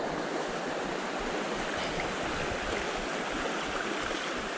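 Steady rush of a small creek's shallow riffle running over rocks.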